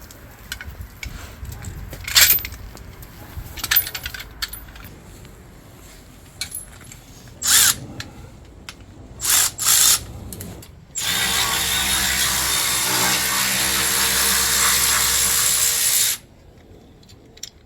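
Handheld power drill, run in several short bursts and then held running steadily for about five seconds before it cuts off, with light clinks of tools and parts in between.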